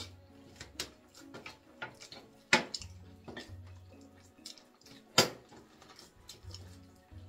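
Eating sounds from two people eating rice by hand from ceramic bowls: scattered small clicks and smacks, with two sharp knocks on the dishes, about two and a half and five seconds in. Quiet background music with a low bass line runs underneath.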